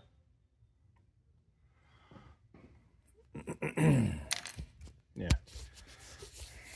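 Hands working a helical oil pump gear onto its shaft on a John Deere 329 engine's front plate: scattered metal clicks and rubbing as the gear is lined up. A man's short voice sound falls in pitch about four seconds in, and a sharp knock comes a little after five seconds.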